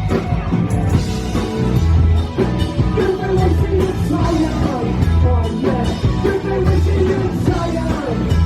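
Rock band playing live, with electric guitar, bass and drums, and a voice singing.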